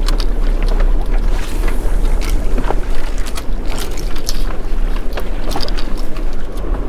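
Wind buffeting the microphone aboard a small drifting fishing boat, a steady low rumble with a wash of noise, broken by scattered short knocks and clicks.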